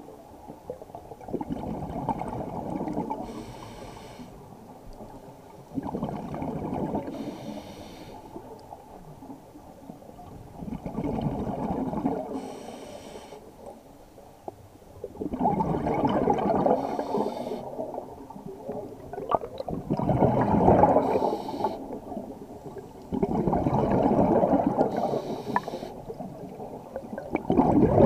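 Scuba diver breathing through a regulator underwater. A gurgling rush of exhaled bubbles comes about every four to five seconds, with a fainter hiss of the regulator between the exhalations.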